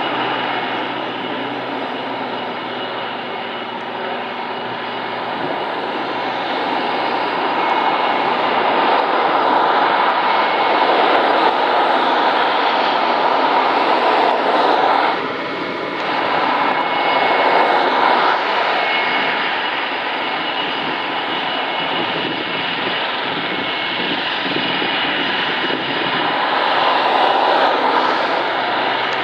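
Spitfire and Hurricane, WWII piston-engined fighters, flying past together: a continuous propeller-engine drone that swells louder through the middle of the pass, dips briefly, then holds steady.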